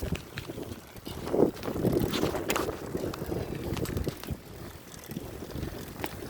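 Wind buffeting the phone's microphone during a bicycle ride: a steady low rumble, with a few sharp ticks from the bike.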